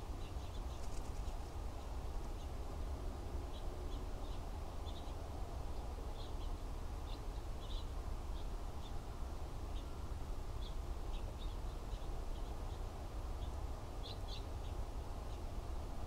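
Small birds calling out of sight with short, high chirps scattered through the whole stretch, over a steady low background rumble.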